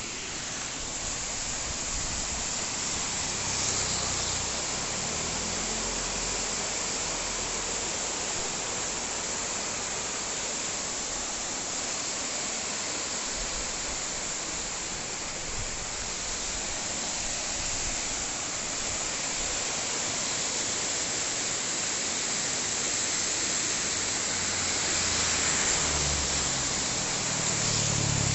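Waterfall pouring heavily, swollen by heavy rain: a steady rushing of water. A low rumble swells briefly about four seconds in and again near the end.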